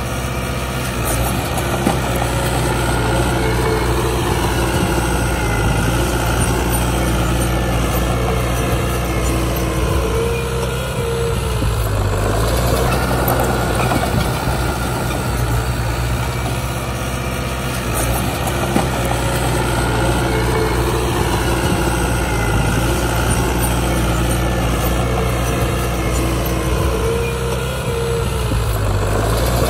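Heavy diesel engine of earthmoving machinery running steadily, its note rising and falling slowly as it works.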